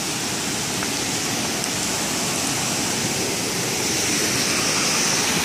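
A small woodland stream cascading over rocks with a steady rush of water, growing gradually louder.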